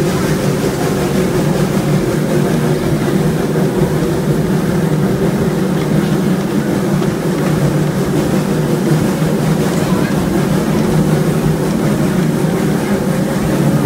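Passenger train hauled by Mallet tank steam locomotive #110 running along the track at a steady pace, heard from an open coach window: a loud, even running noise of the moving train and its wheels on the rails.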